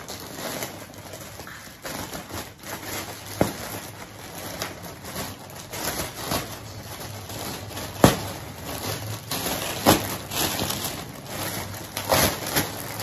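Plastic packaging of a pillow crinkling and rustling as it is pulled open and handled, with a few sharper snaps of the plastic along the way.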